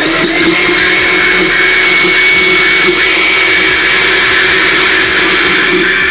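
Countertop blender running at a steady speed, blending hollandaise sauce to a thin, smooth consistency: an even motor whir with a steady high whine over it.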